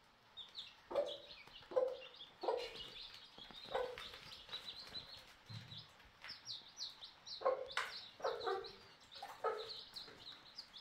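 Hen clucking in short, low calls every second or so, with a pause midway, over the continuous high peeping of her young chicks.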